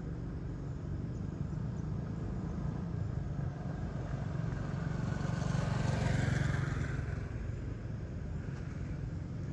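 A motor vehicle passing on a road, growing to its loudest about six seconds in and then fading, over a steady low rumble.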